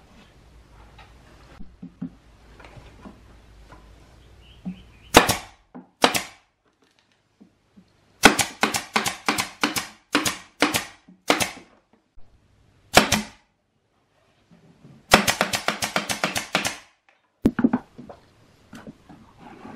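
Pneumatic brad nailer firing brads into plywood speaker-box panels: sharp shots, some single, some in runs of a few a second, with a fast run of about a dozen shots about three-quarters of the way through.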